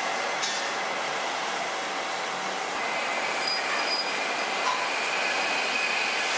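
Steady workshop background noise, a constant rushing hiss, with a few faint metallic clinks around the middle as hand tools touch a steel pipe flange.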